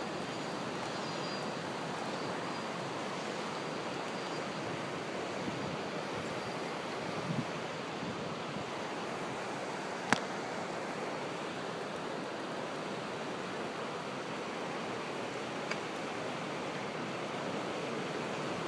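Steady wash of breaking ocean surf, with one sharp click about ten seconds in.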